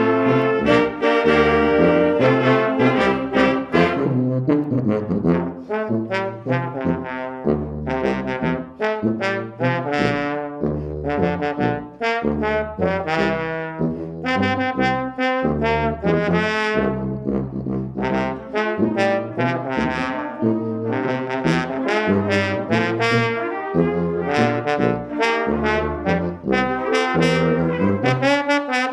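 Brass ensemble music: trombones and trumpets playing together over a strong low bass line.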